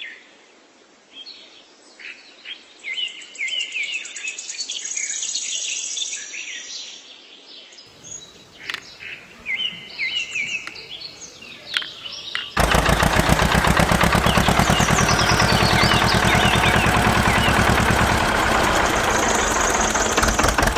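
Small birds chirping in short, scattered calls. About twelve and a half seconds in, the sound cuts abruptly to a loud, steady, very rapid rattling noise from a machine, which runs on.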